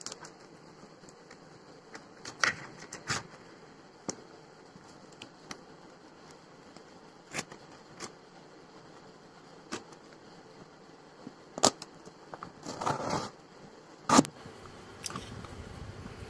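Cardboard shipping box being slit open with a small blade: scattered sharp taps, clicks and scrapes of the blade, tape and cardboard, with a longer ripping scrape near the end.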